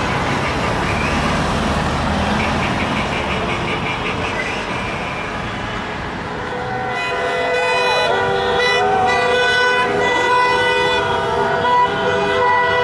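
Cars driving past, then from about halfway many car horns honking at once in overlapping, held-on tones of different pitches: celebratory honking from passing cars.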